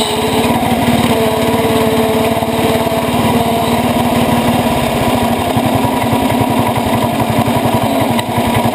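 Cub Cadet 80 garden tractor's single-cylinder engine running steadily while driving off-road. The firing beat becomes more pronounced about halfway through, and a thin whine sits over it in the first half.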